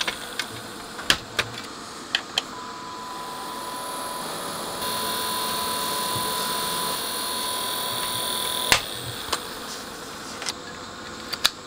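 Several sharp clicks as an optical plug is pushed into the amplifier's rear DAT digital input. Then comes a steady hiss with a faint, steady test tone for several seconds, while the amplifier passes the test signal. The tone ends with a click, and a few more small clicks come near the end.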